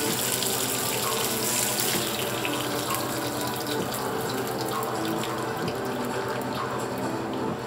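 Whole fish frying in hot oil in a skillet: a steady sizzle, strongest for the first couple of seconds and then easing.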